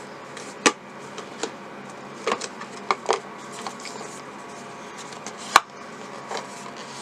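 Scattered clicks and light knocks of camera packaging being handled, the sharpest a little over five seconds in, over a faint steady hum.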